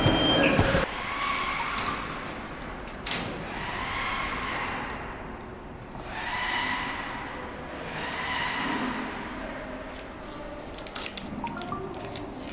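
CNC laser cutter at work on acrylic sheet: high motor whines glide up and down in pitch as the head moves. Under them a hiss swells and fades every couple of seconds, with scattered clicks, more of them near the end.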